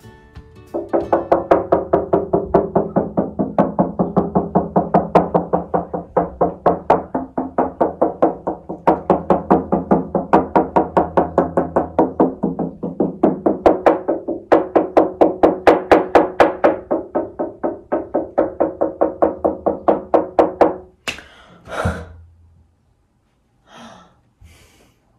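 Knuckles tapping around the edges of a cello's wooden body, about three knocks a second, each setting the body and strings ringing, in a check for an open seam. The tapping stops shortly before the end.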